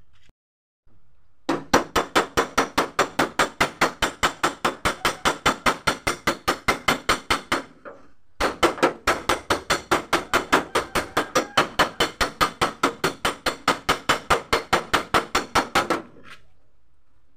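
Hammer tapping steadily and fast, about five blows a second, on the steel door of a Mitsubishi L300 van to work out a dent without damaging the paint. The tapping comes in two long runs with a short break about eight seconds in.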